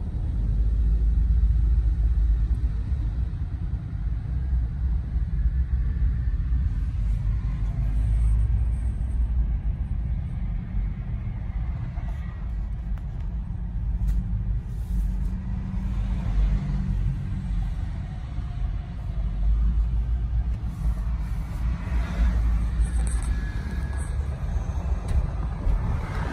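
Steady low road and engine rumble inside a Jeep's cabin as it cruises at highway speed.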